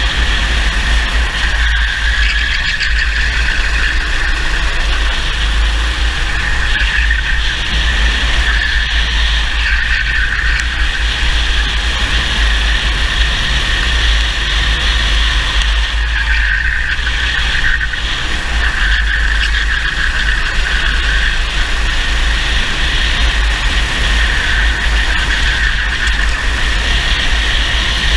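Racing kart engine running at speed through a lap, heard from an onboard camera; its pitch rises and falls every few seconds as the driver gets on and off the throttle, over a heavy low rumble of wind on the microphone.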